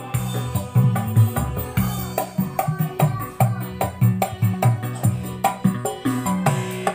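Music with a steady beat and strong bass, played through a home-built PAM8403 5-volt class-D mini amplifier driving a 12-inch speaker cabinet: a test of the finished amplifier.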